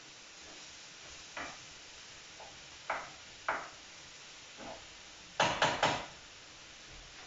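Metal cooking utensil knocking against a frying pan as fish is turned: a few light, scattered knocks, then three sharp taps in quick succession about five and a half seconds in, over a faint steady hiss.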